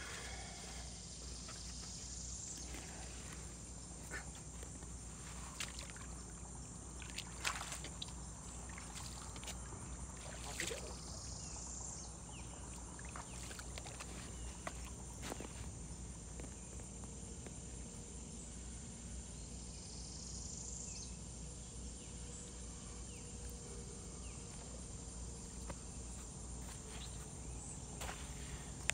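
Riverside outdoor ambience: a steady low hum with scattered small knocks and clicks, the loudest about seven seconds in. Faint high chirps come through three times.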